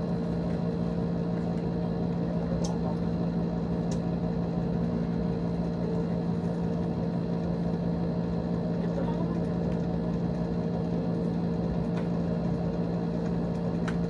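Steady electric hum with a low tone and a faint high whine, with a few faint clicks as motorcycle helmets and their packaging are handled.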